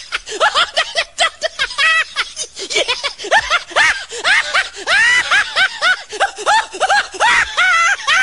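High-pitched, rapid laughter: a string of short cackling bursts, several a second, with longer drawn-out whoops in the second half.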